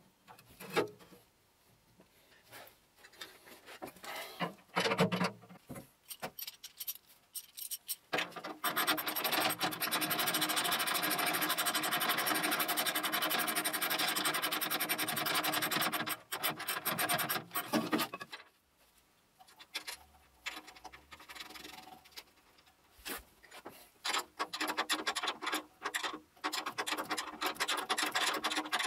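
Hand work under a metal lathe stand: scattered clicks and knocks of tools and parts, and a long continuous rasping scrape from about 8 to 16 seconds in that trails off in broken strokes.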